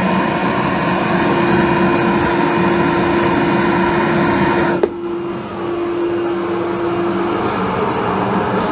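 Workshop dust extractor running, a steady rush of air with a hum, sucking dust through the ducting from the table saw. About five seconds in there is a sharp click, and the air rush turns duller.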